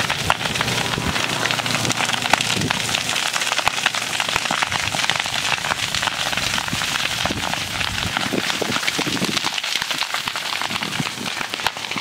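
Grass and brush fire burning, a dense, steady crackling with many sharp pops.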